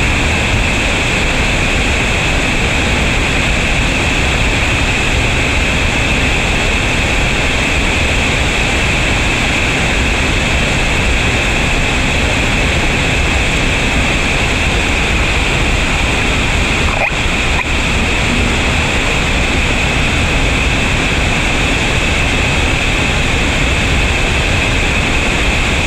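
Whitewater pouring over a river ledge waterfall, Baby Falls on the Tellico River, heard close up as a loud, steady, unbroken rush of falling water.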